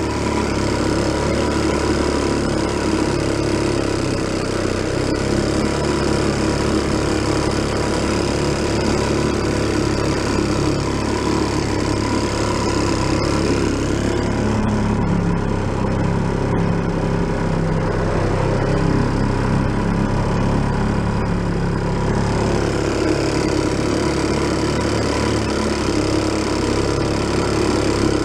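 1937 Sears Waterwitch 2.5 hp two-stroke outboard motor running steadily under way, pushing a small boat.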